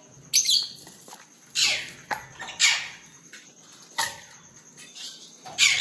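Caged lovebirds giving about five sharp, shrill calls roughly a second apart, each falling quickly in pitch.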